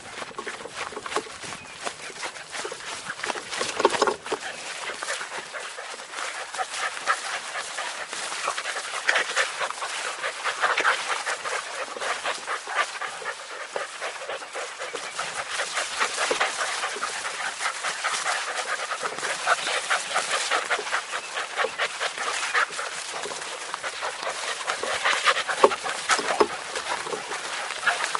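Puppies panting and giving small whimpers as they play close up, over a steady crackle of long grass rustling.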